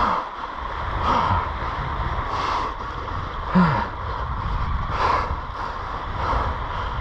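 An angler breathing hard, with short grunts of effort about a second in and again about three and a half seconds in, while fighting a hooked fish on a surf rod, with wind rumbling on the microphone.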